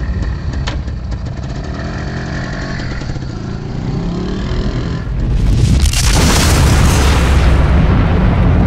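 Sound effects for an animated logo: a low rumble with a rising tone, then about five seconds in a swelling whoosh that grows into a loud, sustained, boom-like rush of noise.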